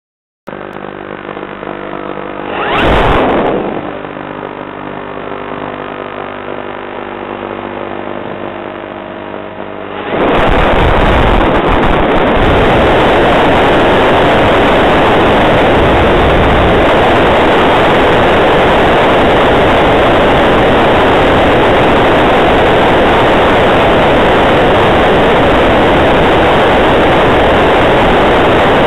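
Electric motor and propeller of an Elektro-Junior Plus S RC glider, heard from on board. First comes a steady whine of several tones, with a brief surge about 3 seconds in. About 10 seconds in it turns into a loud, steady rush of the motor under power with airflow as the plane climbs.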